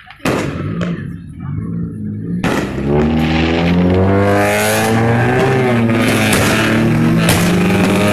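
Consumer fireworks going off: two sharp bangs in the first second. From about two and a half seconds in, a loud, steady pitched drone sets in, with scattered cracks and pops over it.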